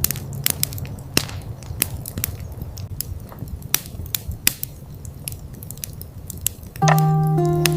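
Irregular crisp crunching and crackling, many sharp clicks of uneven spacing over a low rumble. Music with held notes comes in near the end.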